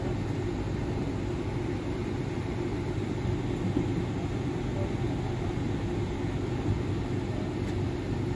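Steady airliner cabin noise after landing: a constant low hum with a rush of air, unchanging throughout.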